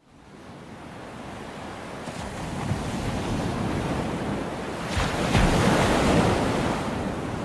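Ocean surf sound effect: waves rushing and breaking, fading in from silence and swelling to its loudest a little past the middle.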